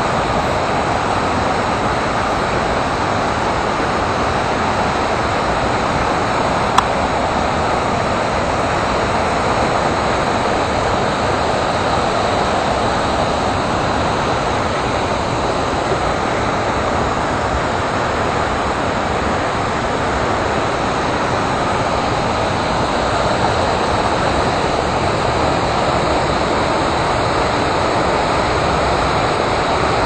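Water pouring over a waterfall: a loud, steady rushing noise, with a single sharp click about seven seconds in.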